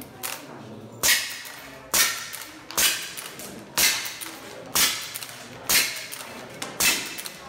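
CO2 lever-action rifle fired seven times in a steady string, about one shot a second, each sharp crack followed by a short ringing tail.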